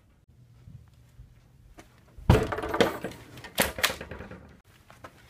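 A door bangs open with a loud thump about two seconds in, followed by a few more knocks and the rustle of people moving.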